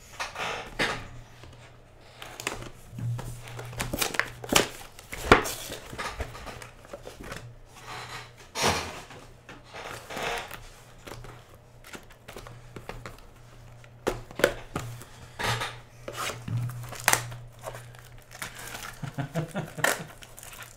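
Plastic wrap crinkling and tearing and cardboard card boxes knocking and sliding as a trading-card hobby box is opened and its mini-boxes are unwrapped, in irregular rustles and taps over a steady low hum.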